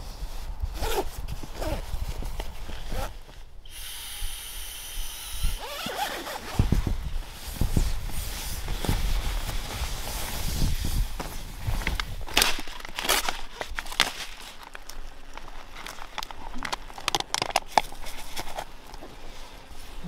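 Camping gear being handled: irregular rustling and light knocks, with a short scratchy stretch about four seconds in.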